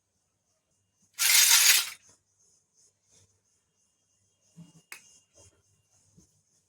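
Miniature toy kitchen set being unboxed: a short burst of crinkling plastic packaging, then a few light clicks and one small ringing clink as tiny toy pieces are handled.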